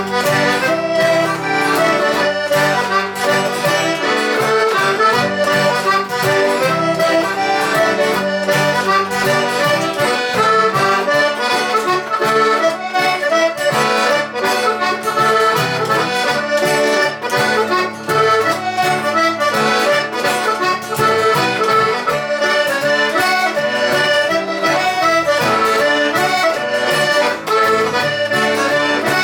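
Traditional Hebridean accordion music, a tune with an even beat, accompanied on guitar.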